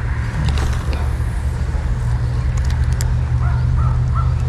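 A steady low drone like a running motor, with a few sharp clicks about three seconds in.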